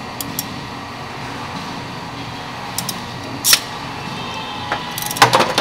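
Light clicks of hands working a thin wire cable and a door-popper solenoid with pliers, over a steady hum. One short, sharp burst about three and a half seconds in, and a quick run of clicks near the end.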